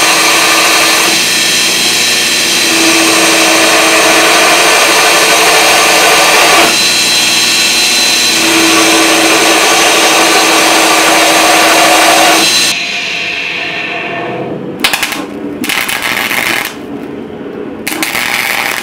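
Belt grinder running with a flat steel piece pressed against its belt, a loud steady grinding with a whine, for about twelve seconds; then the grinding stops and an arc welder crackles on and off.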